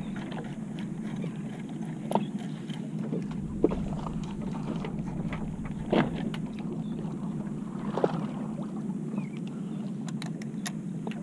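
Steady low hum of a fishing boat on open water, with a few short sharp knocks about two, four, six and eight seconds in.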